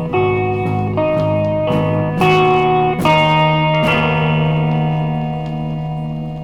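Instrumental bedroom-pop music: a melody of notes changing every half second or so over a held low note, then a final chord from about four seconds in that rings on and slowly fades.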